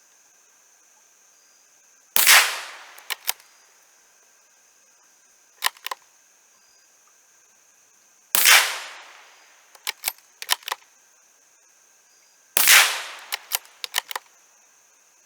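Three .22 LR shots from a Savage B22-V bolt-action rifle, about six and then four seconds apart, each report ringing out for about a second. Each shot is followed by a few quick metallic clicks as the bolt is worked to eject the spent case and chamber the next round.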